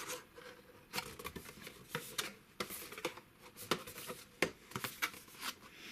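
Cardboard box and packaging being handled and searched through: irregular light clicks, taps and rustles.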